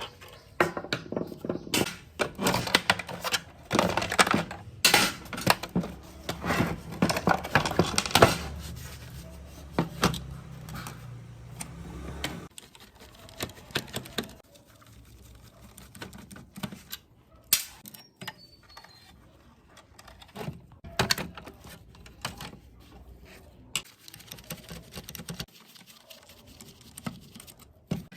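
Irregular clicks, taps and rattles of small hard parts and tools being handled, dense at first and sparser in the second half. A low hum runs under the first half and stops about twelve seconds in.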